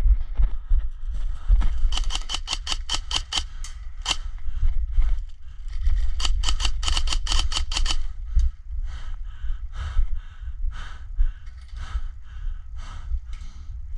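Airsoft gun firing two quick strings of single shots, about five or six a second, with one lone shot between them. Softer hits follow about twice a second, and wind rumbles on the microphone throughout.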